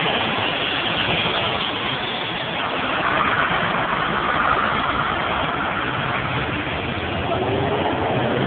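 Steady road-vehicle noise: a car engine running with a constant hiss of traffic or tyres, and a low engine hum coming in about six seconds in.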